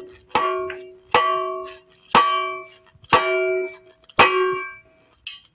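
A steel shovel head clanging five times, about once a second, each strike ringing on for most of a second. The end of a new wooden handle is being struck against a hard surface, driving the handle up into the shovel's socket.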